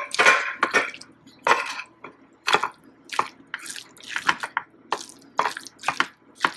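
Metal fork scraping and tapping against a ceramic bowl while mixing shredded chicken filling with cream cheese, in short irregular strokes about two a second.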